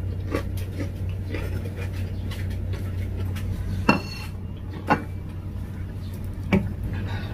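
White ceramic plate set down on a stone countertop: a sharp clink with a brief ring about four seconds in, followed by two more knocks as things are handled over it. A steady low hum runs underneath.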